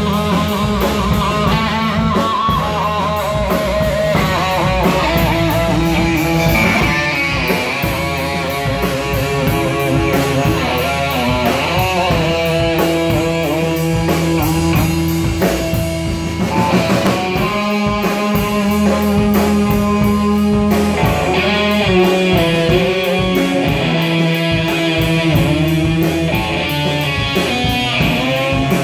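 Live blues-rock band playing loud and continuous: electric guitar over bass guitar and drum kit, with harmonica through a microphone.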